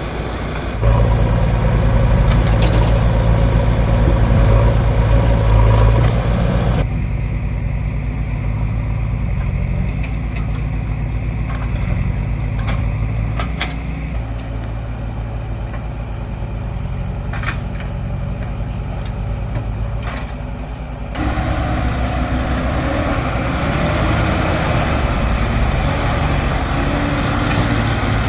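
Heavy diesel machinery engines running steadily, the sound changing abruptly about a second in, about seven seconds in and about twenty-one seconds in as one clip gives way to another. A few short clanks come in the middle.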